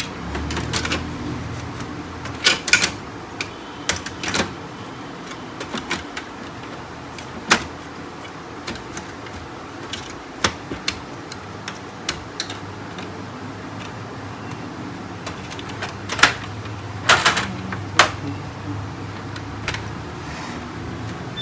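Irregular clicks, knocks and snaps of a laser printer's plastic panels and latches being handled and fitted back together, over a low steady hum. The sharpest clusters of clicks come about two and a half seconds in and again from about sixteen to eighteen seconds.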